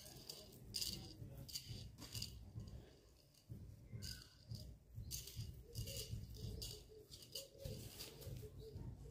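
Faint, intermittent rustling and light rattling, with a low rumble underneath.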